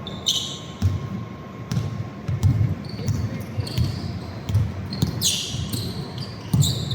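Basketball bouncing on a gym court in uneven thumps during play, mixed with sneaker squeaks on the floor, one longer squeak about five seconds in.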